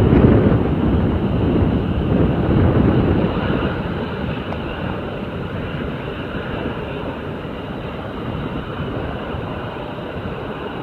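Jet airliner engines running, a steady low rumble that is loudest in the first few seconds and eases off after about four seconds.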